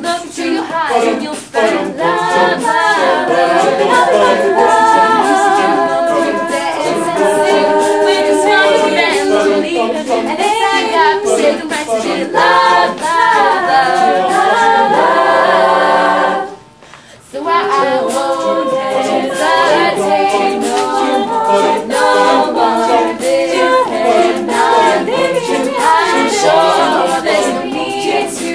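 A cappella group singing: several voices in harmony under a female lead voice, with a rhythmic ticking beat behind them. The singing stops for about a second just past the middle, then carries on.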